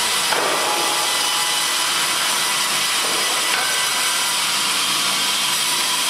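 Fimaksan multi-blade circular saw ripping a log: a stack of circular blades cutting through the wood with a steady, dense, high-pitched sawing noise.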